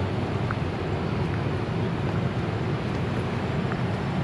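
Steady low rumble of outdoor background noise, with a few faint, very short high tones.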